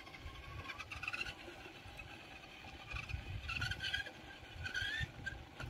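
RC car's small electric motor whining up in pitch in short bursts as it is throttled, three times, over a low, uneven rumble.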